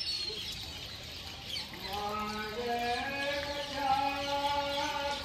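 A man's voice chanting in long, held notes that step up and down in pitch, starting a couple of seconds in, over faint bird chirps.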